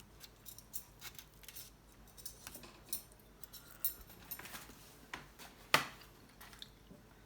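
A string of small, irregular clicks and taps, like cutlery on a plate, as a portion of baked fish is broken apart and tasted. The sharpest click comes about three-quarters of the way through.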